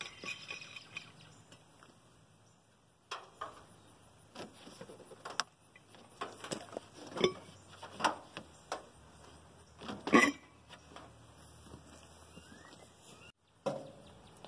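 Scattered light clinks and knocks as an air cleaner is worked loose and lifted off a Holley carburetor, with short quiet gaps between them and the loudest knock about ten seconds in.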